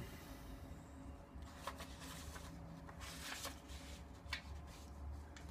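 Faint rustling and a few light clicks from a hand-held folder being handled, over a low steady room hum.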